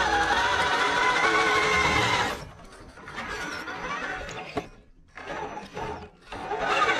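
Electric whine of an RC crawler's brushless motor and drivetrain (Vaterra Ascender Ford F100, Castle sensored 1406 motor) under throttle as it climbs a log, its pitch edging up, then cutting off suddenly about two and a half seconds in. A quieter stretch follows with faint gear and dirt noise and a few sharp ticks, and the whine comes back near the end.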